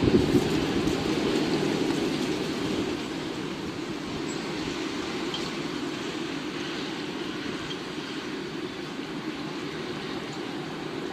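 Steady rushing wind noise of a storm, loudest in the first few seconds and then settling to an even rush.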